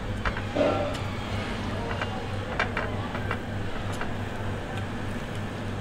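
Steady low hum of room noise in a restaurant, with scattered light clicks and taps of eating by hand from a plate at the table, and one brief louder sound about half a second in.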